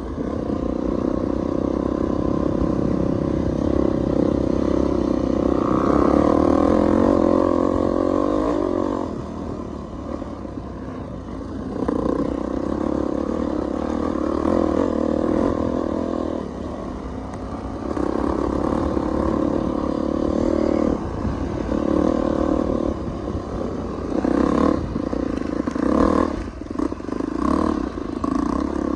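Dirt bike engine under way on a dirt trail, pulling steadily with the throttle rolled off and back on several times. Near the end it turns choppy, with short throttle bursts and knocks over rough ground.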